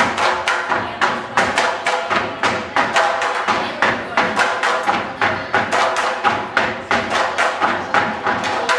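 Bamboo tinikling poles knocking on the floor and clapped together in a steady rhythm, about four knocks a second, over folk dance music.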